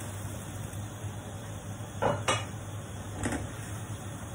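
Chopsticks stirring kamote (sweet potato) leaves in a stainless steel pan, with three sharp metal clanks of the pan and its stainless lid: two close together about two seconds in, and one a second later. A steady low hum runs underneath.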